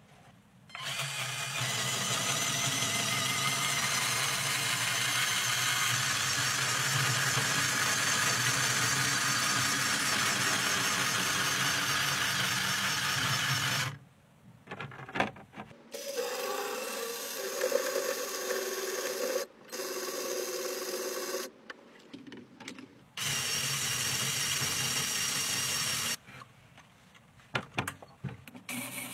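Electric motors of a LEGO Technic car running and driving its wheels in several separate runs: one long run that stops about halfway, then two shorter runs, the second of them with a steadier, higher tone. Short clicks come in the pauses between runs.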